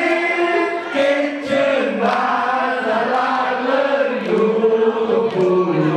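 A crowd of people singing a song together, many voices holding the notes of one melody.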